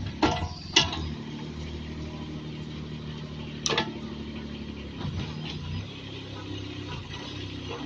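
Kubota D722 three-cylinder diesel engine of a 1.8-ton mini excavator running steadily while the boom and arm are worked hydraulically. A few sharp knocks stand out: two just after the start and one about three and a half seconds in.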